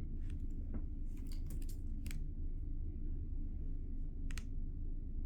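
Steady low room hum with a few faint, light clicks and ticks scattered through it.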